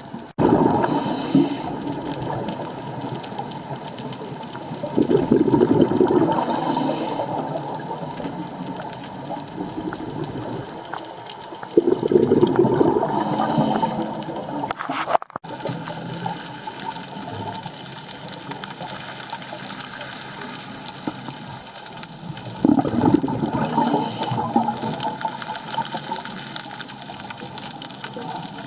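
Scuba diver breathing through a regulator underwater: a short hiss on each breath and a gush of exhaled bubbles, four breaths several seconds apart.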